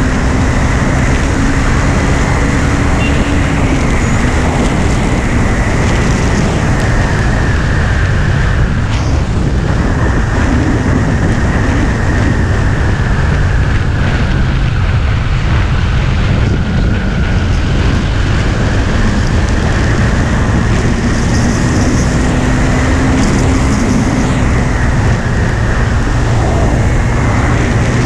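KTM Duke 390's single-cylinder engine running at road speed, buried in loud wind rush on the microphone. The engine note holds fairly steady, shifting only a little in pitch.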